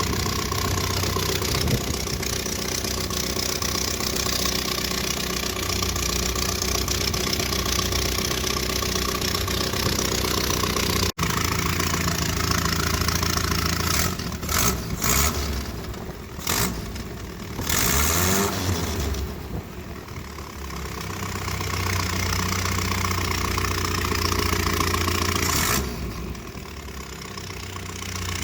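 1978 Triumph Spitfire 1500's four-cylinder engine running loud and rough, with a sound like an old diesel tractor. It holds steady at first, then is blipped several times and revved up and down. The owner suspects a leaking exhaust after a pop on revving.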